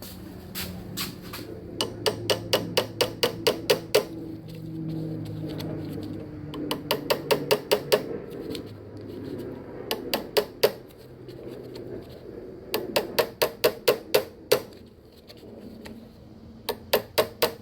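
Quick light hammer taps on a workpiece held in a lathe chuck, knocking it true while it is indicated. The taps come in five bursts of about five a second, with short pauses between them.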